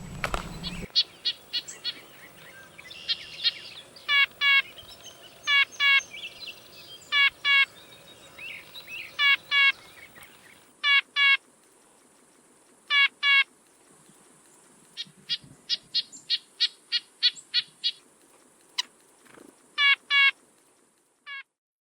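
A bird calling: short notes, mostly in pairs repeated every second or two, with a quicker run of about a dozen notes a little past the middle.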